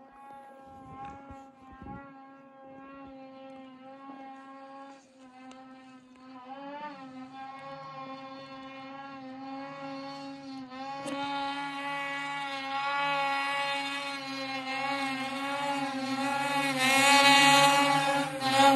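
Snowmobile engines running at high revs, growing steadily louder as a sled climbs the chute toward the camera. A second, lower engine note joins about seven seconds in.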